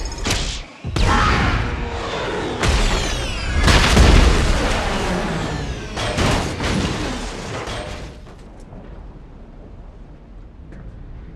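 Film action sound effects: a run of crashes, booms and falling whooshes, loudest about four seconds in, dying down after about eight seconds to a quiet low rumble.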